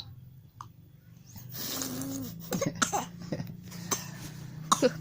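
Young child coughing and sputtering in short fits, about two and a half seconds in and again near the end.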